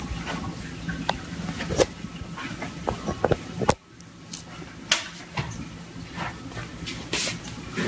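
A cardboard box knocking and scraping on a tabletop, several sharp irregular taps, as a cat with its head stuck inside it moves around. A steady low hum runs underneath.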